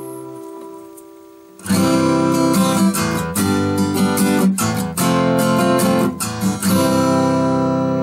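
Seagull S6 Original acoustic guitar with Elixir Nanoweb light strings strummed with a Graph Tech Tusq pick: a chord rings and fades, then strumming starts again about a second and a half in with a run of chords, the last one left ringing near the end.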